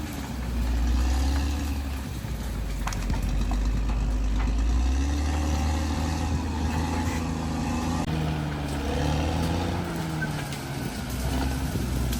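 Bulldozer's diesel engine running with a deep continuous drone, its engine speed rising and falling.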